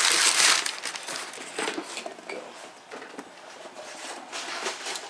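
Brown packing paper crinkling loudly as a wrapped box is pulled out of a cardboard shipping box, giving way after about a second to quieter rustling and light taps.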